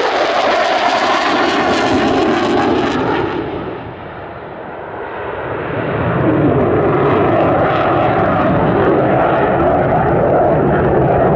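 Jet engine noise of a Saab JAS 39 Gripen fighter in display flight, a loud continuous roar. It fades about four seconds in and builds back to full loudness from about six seconds in.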